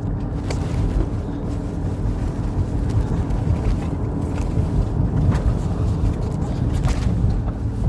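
Steady low rumble of road noise inside a moving car's cabin, with a few short clicks.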